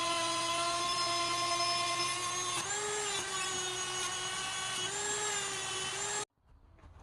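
Small electric power tool running with a steady high whine, its pitch sagging briefly twice as it bears on the work; the sound cuts off abruptly near the end.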